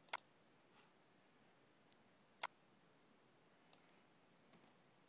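Computer mouse clicks against near silence: two sharp clicks, one right at the start and another about two and a half seconds in, with a few fainter ticks between and after.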